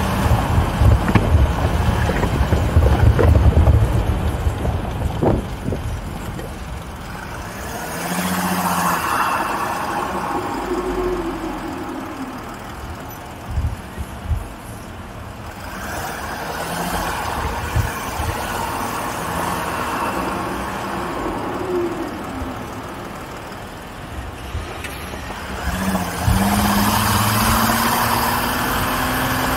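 Off-road vehicle engine running as it drives over a rough dirt and gravel course. Heavy rumbling and knocks from the bumpy ride come in the first few seconds, and the engine rises and falls in pitch several times before revving up louder near the end.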